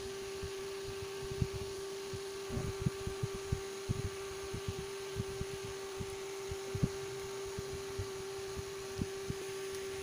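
A steady electrical-sounding hum with soft, irregular low thumps and rustles from hands twisting thin headphone wires together close to the microphone.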